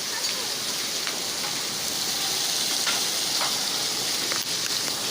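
Rain pouring down in a steady hiss, with a few sharper taps scattered through it, as a hailstorm turns to rain.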